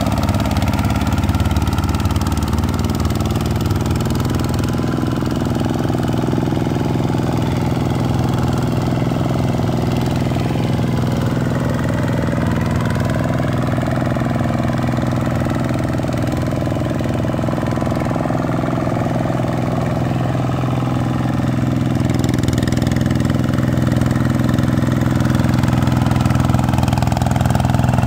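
Vikyno RV125-2 single-cylinder diesel engine on a two-wheel hand tractor, running steadily under load as its cage wheels churn through paddy-field mud. It grows louder over the last few seconds.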